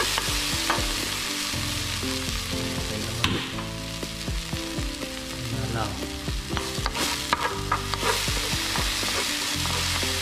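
Spring onion and seasonings sizzling in hot cooking oil in a pan, with a utensil clicking against the pan now and then.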